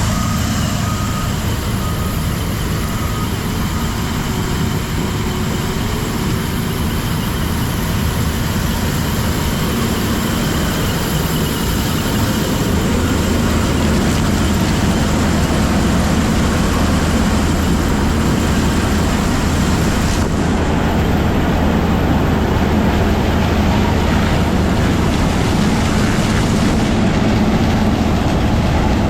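Heavy diesel farm machinery running steadily, getting a little louder about twelve seconds in. A few short electronic beeps sound in the first few seconds.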